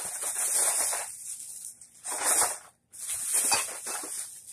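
Thin plastic shopping bag rustling and crinkling as it is handled and rummaged through, in three spells of a second or so each.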